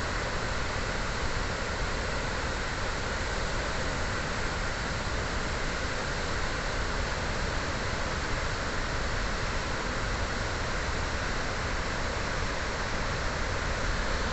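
Floodwater pouring over a dam spillway and churning in the white water below it: a steady, dense rushing.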